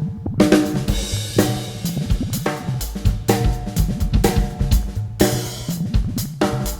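Drum kit played freely, with kick drum, snare, hi-hat and cymbals, over sustained pitched backing notes that change every second or so. Twice the backing briefly drops away, just after the start and about five seconds in.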